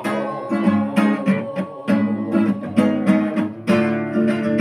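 Acoustic guitar strumming chords in a steady rhythm, a few strokes a second, as an instrumental passage between the ballad's sung lines.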